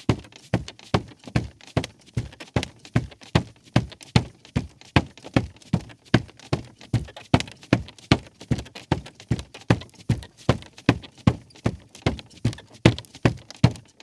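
A man's bare feet walking on a creaky rug: a steady, even run of footfalls, about three impacts a second.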